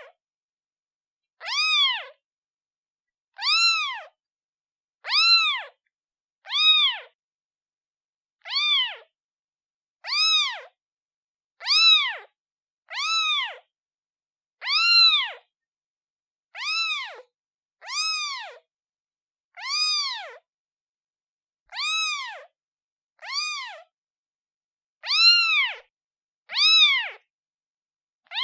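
Newborn kitten meowing repeatedly, calling for its mother. The high, thin meows come about every one and a half to two seconds, each rising and then falling in pitch, with silence between them.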